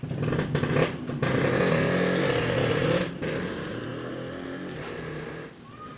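A motorcycle engine running close by, loud for the first three seconds, then quieter, and fading out about five and a half seconds in.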